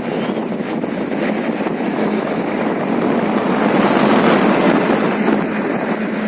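Steady outdoor traffic noise mixed with wind on the microphone, swelling louder about four seconds in.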